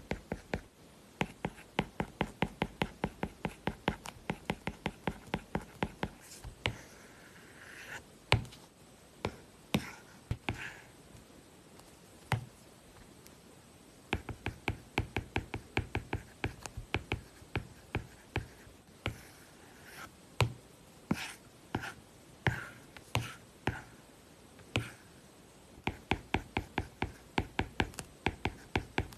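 Stylus writing on an iPad's paper-like matte screen protector: quick runs of crisp tip taps, about five a second, broken by a few short scratchy strokes and brief pauses.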